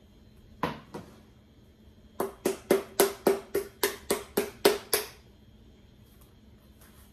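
An upturned jar of pasta sauce being smacked by hand to shake the sauce out: two knocks, then a quick run of about eleven hollow strikes, about four a second, each with a short ringing note.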